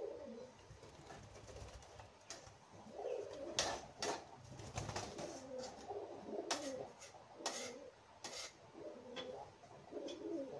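Pigeons cooing, low and wavering, with a few sharp clicks in between.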